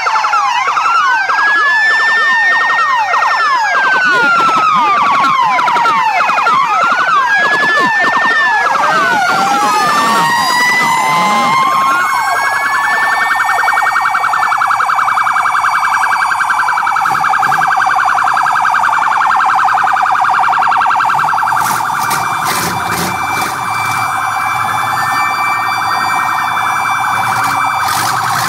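Several sirens sounding at once, their wails rising and falling and overlapping, changing to a fast warbling yelp about halfway through. A few sharp clicks come near the end.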